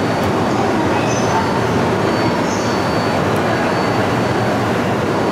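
Steady rumble of a Shinkansen train at a station platform, with a couple of brief high squeaks.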